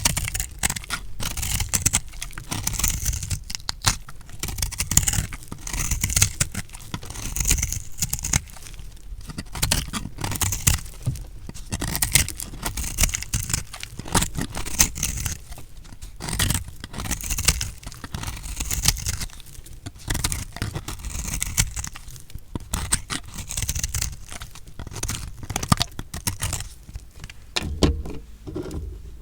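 Knife cutting through recycled soap: crunchy, crackling scraping strokes, a new cut every two seconds or so.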